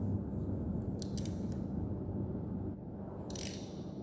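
A steady low hum, with a few light clicks about a second in and a short, brighter rasp a little past three seconds in.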